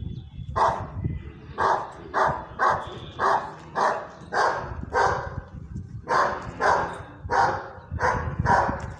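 Dog barking repeatedly from inside a parked car, a steady run of loud barks about two a second: guarding warning barks at a stranger approaching the car.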